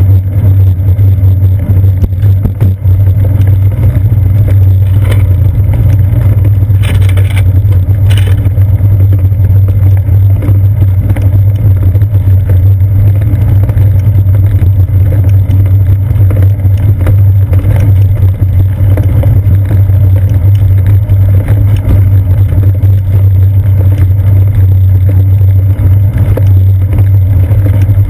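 Steady, loud low rumble from a seat-post-mounted GoPro Hero 2 in its housing on a moving bicycle: road vibration through the frame and wind noise, rolling over asphalt and then a brick street.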